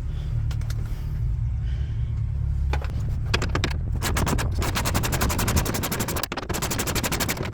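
A fast run of evenly spaced ratcheting clicks, a ratchet being spun, starting about three seconds in over a steady low hum.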